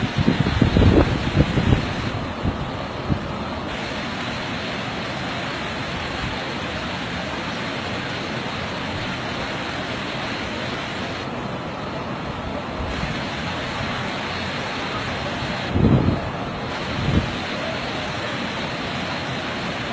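Steady rushing noise of a storm over flooded streets. Low thumps of wind or handling on the phone's microphone come in the first two seconds and again around sixteen and seventeen seconds in.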